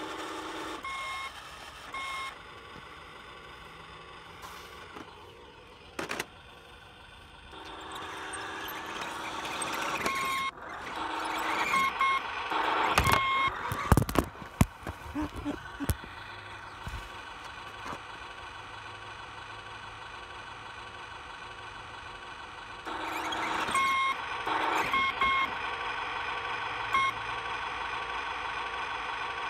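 The toy RC Mini Cooper's built-in sound module playing a synthetic engine sound, a steady electronic buzz that swells louder several times, with short electronic beeps repeated through it. A cluster of loud knocks and rattles comes near the middle.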